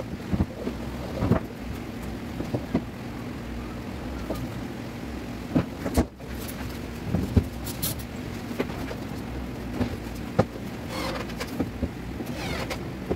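Scattered light knocks and clicks of hands and tools working inside a wooden wardrobe cabinet, over a steady low hum.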